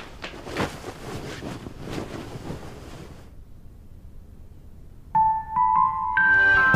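Footsteps and rustling of clothing and bedding for about three seconds, then a short lull. About five seconds in, background music starts with a few high single keyboard notes.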